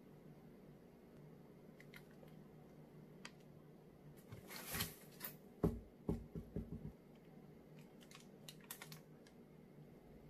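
Sealed plastic food trays and packaging being handled and unpacked from a styrofoam box: a rustle of plastic wrapping about four and a half seconds in, then a sharp knock and a few lighter knocks as packages are set down, and small clicks near the end. Faint overall.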